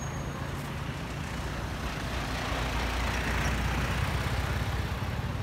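A car driving past on the road, its engine and tyre noise building to loudest about three to four seconds in, then easing off.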